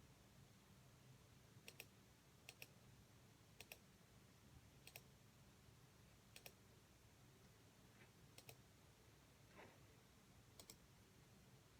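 Near silence with faint, scattered clicks, each a quick double click, about seven of them one to two seconds apart, over a low steady hum.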